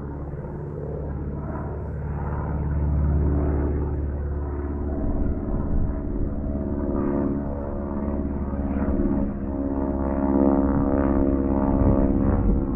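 Radio-controlled scale Boeing Stearman model biplane flying overhead, its engine and propeller giving a steady drone that swells and eases as the plane moves around the sky.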